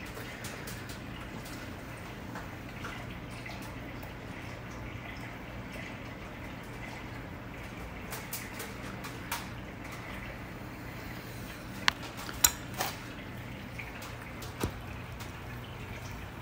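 Cat chewing a piece of steak: soft wet smacking and small mouth clicks, with a few sharper clicks about twelve seconds in, over a steady low hum.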